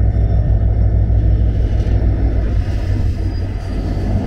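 Diesel locomotive's engine running as it moves along the adjacent track, a heavy low drone that eases off a little about two and a half seconds in.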